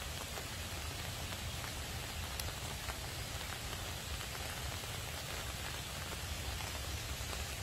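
Steady rain falling: an even hiss with scattered ticks of individual drops.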